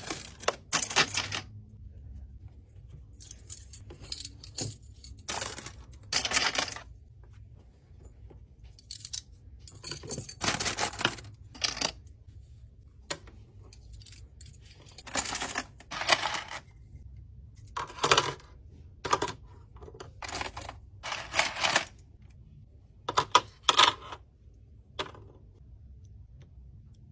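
Metal drinking straws clinking and rattling against each other as they are picked out of bins and handled, in irregular short bursts of clatter with quiet gaps between.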